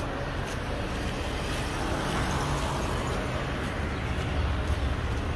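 Road traffic: cars passing along a road, a steady rumble that swells briefly about two seconds in.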